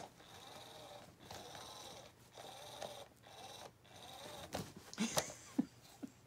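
Small electric motor of a SmartyKat Hot Pursuit cat toy whirring in uneven spells with short gaps as the wand moves under its fabric cover, a sound the owner takes for the motor already dying. A few sharp knocks near the end are the loudest sounds.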